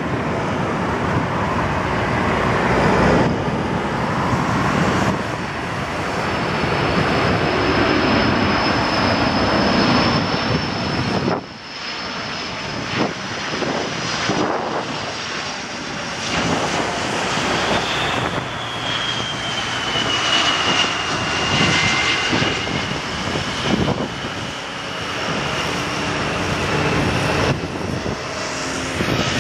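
Jet airliners on final approach, among them a four-engine Boeing 747-400: steady jet engine noise with a high whine that slides down in pitch a little past the middle. The sound breaks off and picks up again abruptly a few times.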